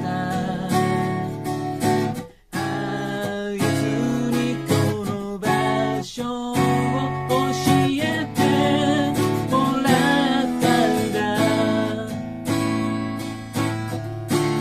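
Music: a strummed acoustic guitar with a wavering melody line above it. The music breaks off for a moment about two seconds in, then carries on.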